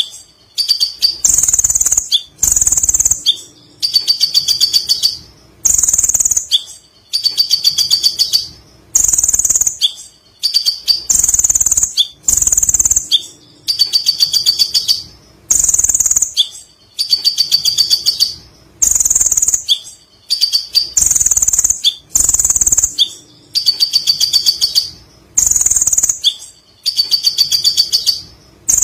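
Kolibri ninja sunbird singing: loud, high, rapid trilled chattering phrases ('ngekek') repeated over and over, a short burst roughly every second and a half with brief pauses between.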